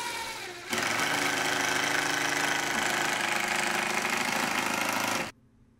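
Cordless impact driver sinking a long wood screw into plywood. The motor runs lighter for the first moment, then the impact hammering starts about a second in as the screw bites. It goes on steadily and cuts off sharply near the end as the screw seats.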